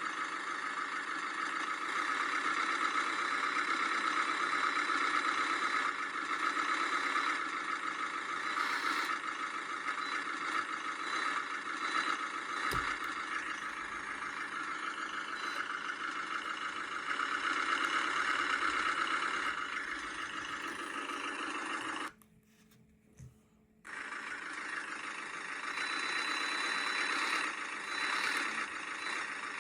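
Simulated tractor engine sound from an RC sound module, played through a speaker. It runs steadily with little bass, cuts out for about two seconds about three-quarters of the way through, then starts again.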